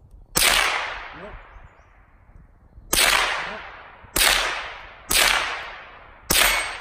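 Five shots from a Marlin Model 60 semi-automatic .22 LR rifle, fired at uneven intervals, the last three in quicker succession, each crack trailing off over about a second.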